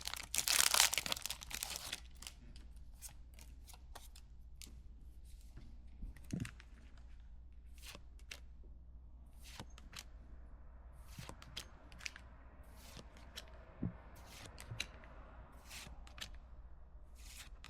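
Foil wrapper of a Pokémon booster pack torn open with a loud crinkle in the first two seconds, followed by soft scattered clicks and taps as the cards inside are handled.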